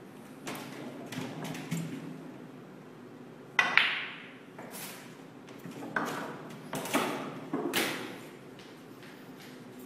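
Snooker balls knocking on a full-size table: a sharp click with a short ring about a third of the way in as the cue ball strikes the yellow, then several softer knocks a couple of seconds later as the balls run into the cushions and the yellow drops into a pocket. A few lighter knocks come before the shot.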